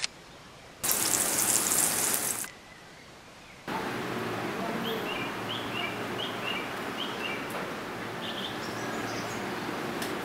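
Chicken breast sizzling as it fries in oil in a pan, for about a second and a half before cutting off suddenly. Then a steady background hiss with a run of short bird chirps.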